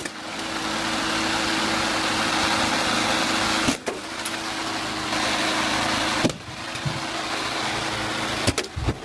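A 5-horsepower gas lawnmower engine running with a loud, steady rush. The sound drops off sharply and resumes twice, and a few sharp knocks come near the end.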